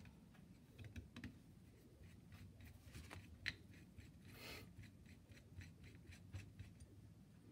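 Faint handling of small metal parts: a few light clicks as screws and a hinged aluminium assembly are picked up and fitted, with a brief soft rustle about halfway through.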